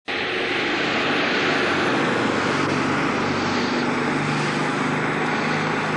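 A steady engine roar with a low hum, unchanging throughout.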